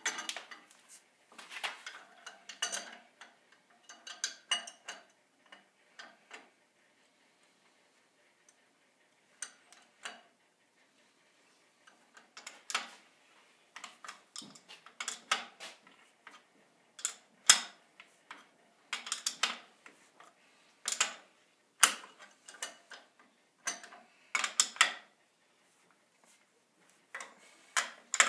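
Steel wrenches clicking, clinking and scraping on threaded gas-pipe fittings as the joints are tightened, in irregular bursts with a few seconds' pause about a third of the way in.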